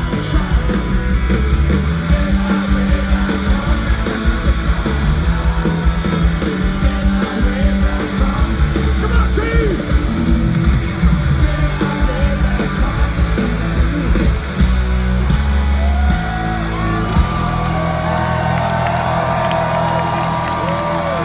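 Live rock band playing loud, with distorted electric guitars, drums, bass and singing, heard from within the crowd through a phone's microphone. About sixteen seconds in the drums and bass drop out, leaving held guitar chords ringing while the crowd yells.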